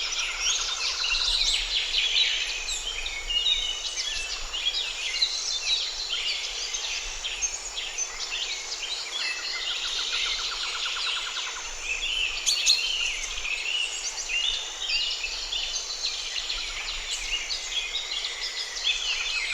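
Many songbirds singing and calling at once: a dense, continuous chorus of short chirps and whistles, with a rapid lower trill at the start and again about halfway through.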